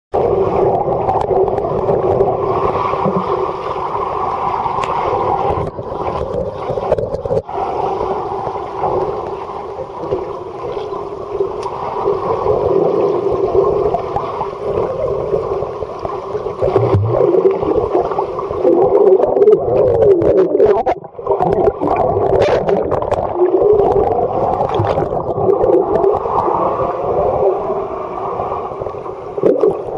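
Muffled underwater churning and bubbling of pool water heard through a submerged camera's microphone, with wavering squeaky tones rising and falling through it. It is steady and loud, with a brief dip about two-thirds of the way through.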